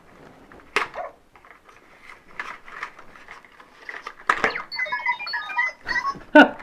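Cardboard toy packaging handled and pulled apart, with scattered knocks and rustles, the loudest near the end. About five seconds in comes a quick run of short beeps at shifting pitches.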